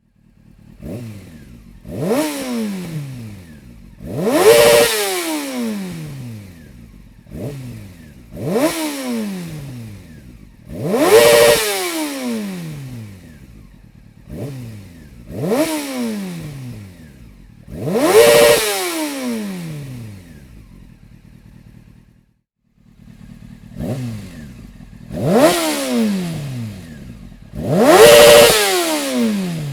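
Honda CBR 600 F4i inline-four sport-bike engine breathing through a Dominator aftermarket exhaust silencer, blipped on the throttle again and again. Every two seconds or so the engine note rises sharply and falls back, with bigger revs between smaller ones.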